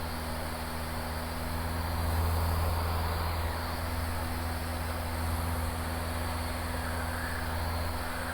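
Van's RV-7 light aircraft's piston engine and propeller droning steadily in the cockpit during flight, swelling slightly about two seconds in.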